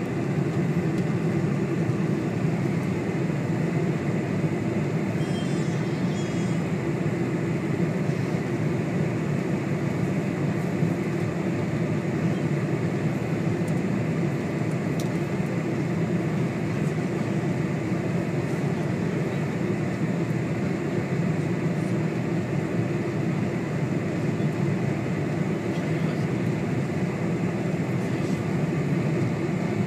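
Steady cabin noise of a Boeing 747 on final approach: engine and airflow sound heard from inside the passenger cabin, deepest in the low range and unchanging in level.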